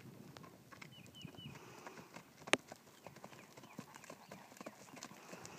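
Faint hoofbeats of a horse galloping on soft arena dirt, with one sharp click about halfway through.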